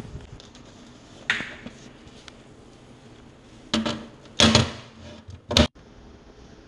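A wooden book stand set down and propped up on a study-cafe desk: a light click about a second in, then three loud knocks and clatters of wood on the desktop over about two seconds, the last the sharpest.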